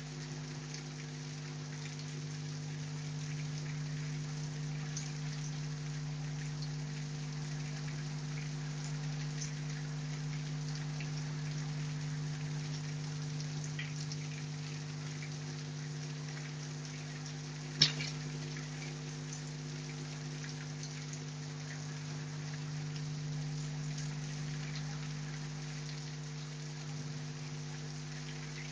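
Heavy rain falling steadily, with scattered drops ticking on a hard surface and a steady low hum underneath. One sharp, loud drop or knock stands out about eighteen seconds in.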